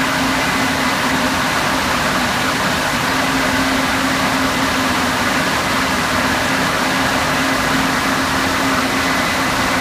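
Traction motor blowers of a Siemens ACS-64 electric locomotive running, heard from inside the engine room: a loud, steady rush of air with a steady low hum and a faint high whine underneath.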